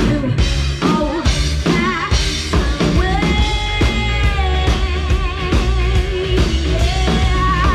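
Live rock band playing: a woman sings long held notes with vibrato over a drum kit, electric guitar and bass.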